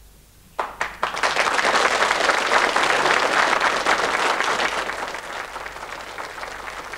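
Audience applauding: a couple of single claps about half a second in, then full applause from about a second in, easing slightly near the end.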